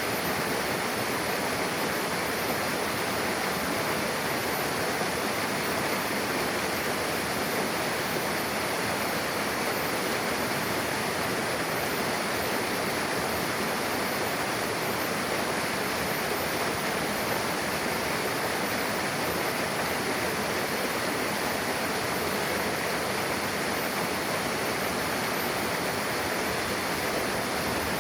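Mountain river rushing over rocks where two streams merge: a steady, even rush of water.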